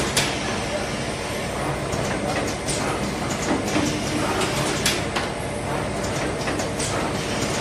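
Semi-automatic paper box gluing and forming machine (PC850A) running steadily, with a low hum under sharp mechanical clacks at short, irregular intervals as it forms the boxes.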